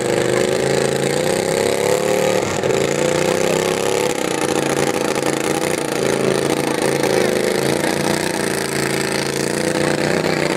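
Garden tractor engine running at high revs during a pull. It runs steadily, with the pitch wavering and dipping briefly a few times.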